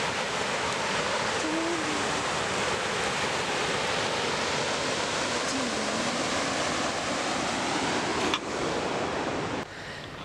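River water rushing over rapids at a fish ladder, a steady, even roar of whitewater. It drops off sharply near the end.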